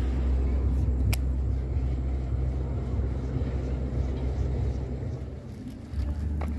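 Wind buffeting the microphone outdoors: a steady low rumble that eases a little after about five seconds, with a sharp click about a second in and another near the end.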